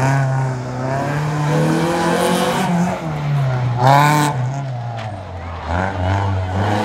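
A small hatchback competition car's engine revving up and falling back again and again as it threads tight turns, with a tyre squeal around a turn about four seconds in.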